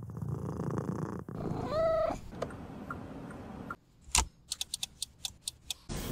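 Domestic cat purring close to the microphone, with a short meow about two seconds in. Near the end comes a quick run of sharp clicks.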